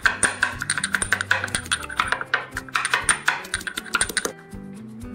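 White stone pestle pounding green chillies and garlic in a stone mortar: rapid knocks of stone on stone, several a second, with a short lull near the end.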